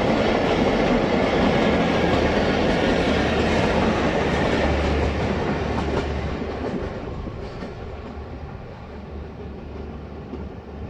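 Passenger train coaches rolling past at speed, the wheels clattering rhythmically over the rail joints. About six seconds in the sound drops away and fades as the end of the train moves off.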